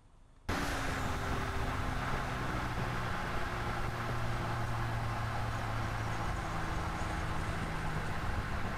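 2023 Chevrolet Colorado pickup's 2.7-litre turbocharged four-cylinder running steadily as the truck drives along a road, with tyre and wind noise. It starts suddenly about half a second in.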